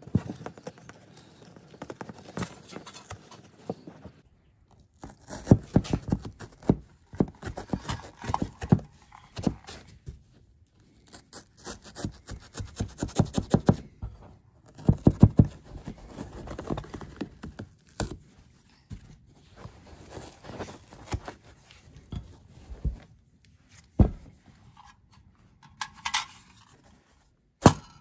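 Handling noises: irregular taps, clicks and knocks as a pistol and loose items are set into and shifted about the foam of a plastic hard case, with a few short pauses.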